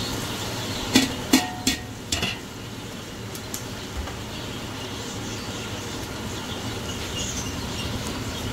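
Metal clanking against a large aluminium cooking pot: four quick knocks about a second in, one with a short ring, as a steel plate of chopped cabbage is tipped and tapped out into the pot. A steady background noise runs under it.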